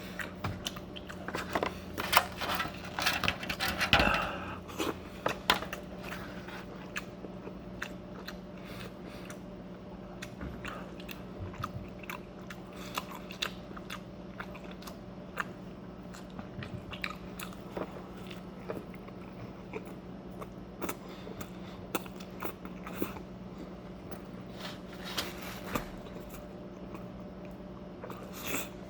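A person chewing and biting food close to the microphone: wet mouth clicks and crunches, busiest in the first five seconds, then slower chewing, with a steady low hum underneath.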